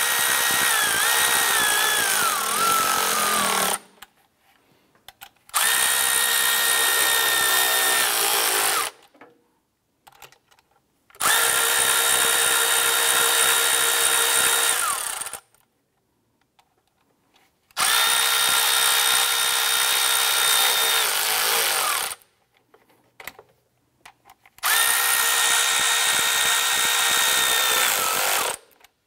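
Cordless electric ratchet whirring as it runs down valve cover bolts: five runs of a few seconds each with short pauses between, a steady high whine in each, the pitch sagging at the end of the first as the bolt seats.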